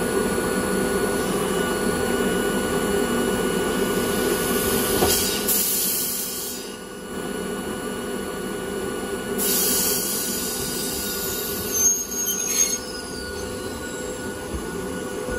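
Hakone Tozan Railway electric train running, heard inside the car, its wheels squealing with a steady high tone over the running noise, as on the line's tight curves. A couple of sharp knocks come near the end.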